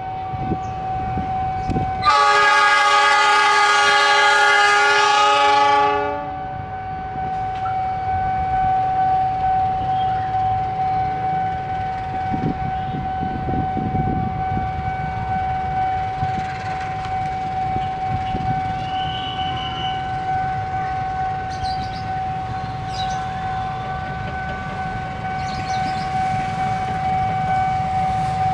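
Diesel locomotive sounds its horn once, a long blast of about four seconds starting about two seconds in, then its engine rumbles low as the long train rolls slowly in. A steady high-pitched tone runs throughout.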